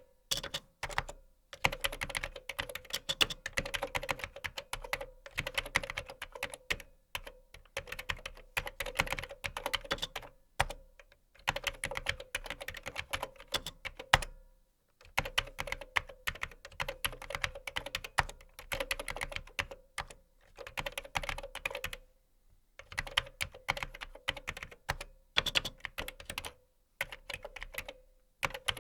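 Typing on a computer keyboard: fast runs of clacking keystrokes broken by short pauses, the longest about halfway through.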